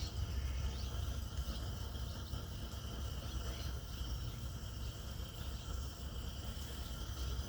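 Steady insect chirring, like crickets, over a low steady rumble from the Swiss Army petrol field stove's priming flame as it warms its generator tube, before it reaches full burn.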